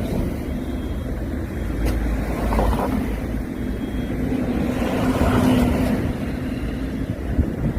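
A motor engine running with a steady low rumble, and a faint hum that swells about five seconds in.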